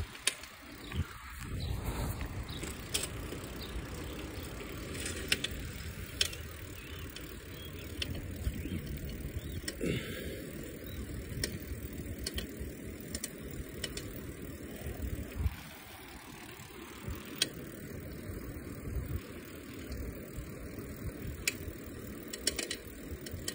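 Bicycle being ridden along a street, giving a steady rolling rumble with scattered clicks and rattles.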